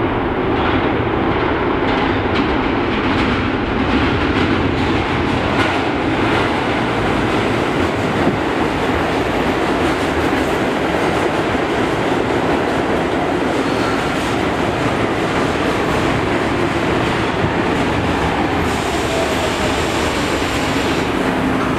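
An R62 New York City Subway train enters the station, wheels clattering over the rail joints. In the second half a whine falls in pitch as the train brakes and slows toward a stop.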